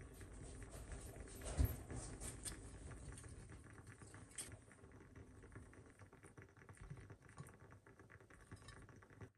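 Faint food-prep handling sounds: a spice jar picked up and shaken over a glass bowl of vegetables, small taps and rustles, with one soft thump about one and a half seconds in. Near the end a raw salmon fillet is lifted into the bowl.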